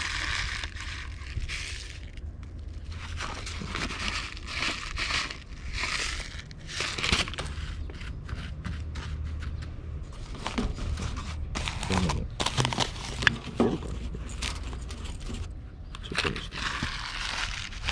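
Small paper seed envelope crinkling and rustling in irregular bursts as seeds are shaken out of it, with fingers scraping in the fine gravel of the seed pots.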